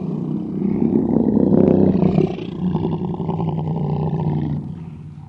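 Camarasaurus sound effect: one long, deep sauropod call from a dinosaur documentary, held for several seconds and then fading away near the end.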